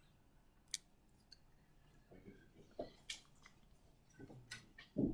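Quiet room with scattered faint clicks and a few soft knocks, the loudest a dull knock near the end.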